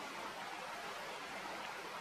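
Steady, even background hiss with no distinct sound event: outdoor ambience.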